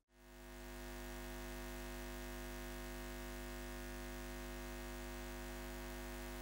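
A steady low electronic hum with many overtones, fading in over about the first second and then holding unchanged.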